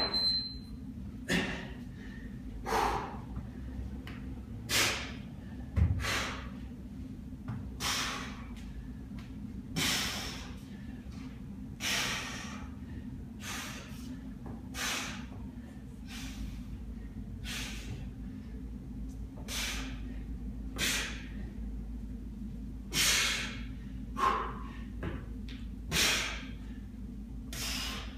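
A man breathing hard under exertion during a kettlebell Turkish get-up: short, forceful breaths, one every one to two seconds.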